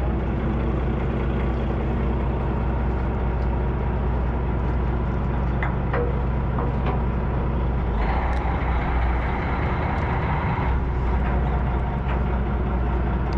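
A fishing party boat's engine running with a steady low drone.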